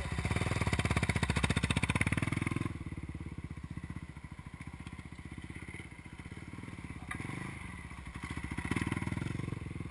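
Dirt bike engines: a nearby bike revs loudly as it pulls away over the first two to three seconds, then a dirt bike idles steadily, with a short rise in revs near the end.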